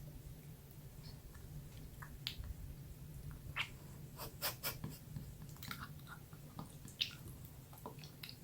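Close-up chewing and mouth sounds from someone eating: soft, irregular wet clicks and smacks, with a faint steady low hum underneath.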